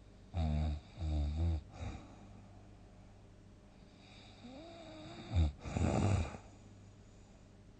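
A person snoring heavily. Two loud pitched snores come in quick succession near the start. About four and a half seconds in, a drawn-out tone rises in pitch and then gives way to a loud, harsh snore.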